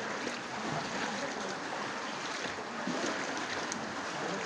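Legs wading through knee-deep floodwater on a street, the water sloshing and swishing continuously.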